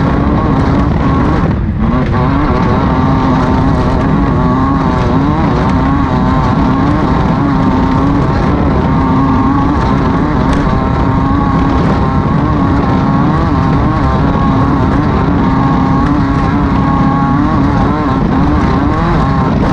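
Air-cooled 1600 cc Volkswagen flat-four engine of a Class 5-1600 off-road race car running hard and steadily. Its pitch wavers up and down as revs and load change, with a brief dip a little under two seconds in.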